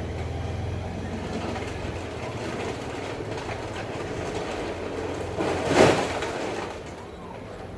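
Low rumble of a passing vehicle fading out over the first couple of seconds, then, near the end, a single short, loud blast of breath forced through the nose.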